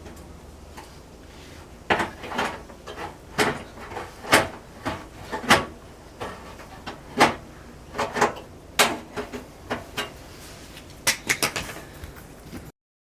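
Tin snips cutting the car's wheel-arch guard: an irregular series of sharp snipping crunches, about one or two a second, starting about two seconds in.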